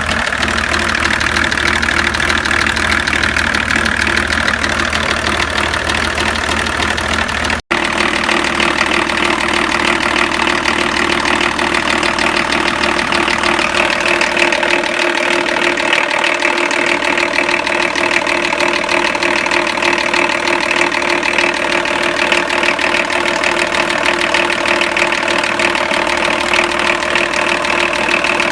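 BMW E38's M51 2.5-litre turbodiesel straight-six running steadily at idle, with an extraneous knocking noise from where the engine meets the gearbox, of unknown cause.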